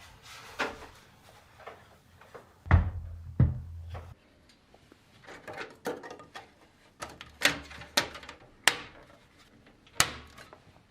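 PC parts and their packaging being handled: a string of sharp clicks, taps and knocks, with two heavier thuds about three seconds in.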